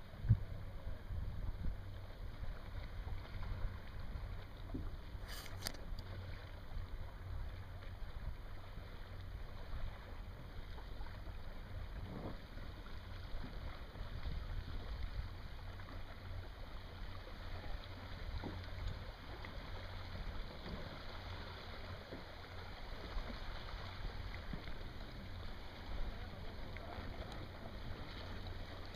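Wind rumbling on the microphone over the steady wash of lapping water, with one brief click about five seconds in.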